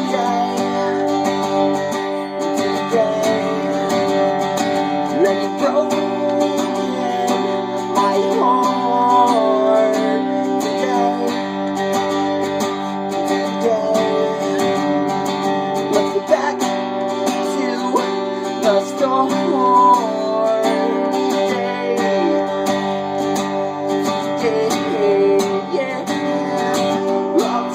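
Acoustic guitar strumming chords in an instrumental passage of a song. A higher line glides up and down in pitch over the chords.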